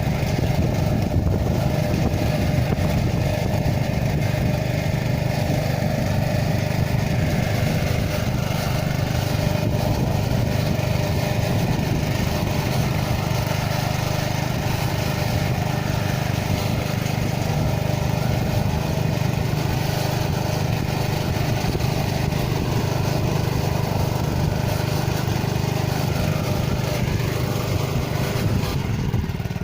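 Small engine of a single-wheel motor plough running steadily.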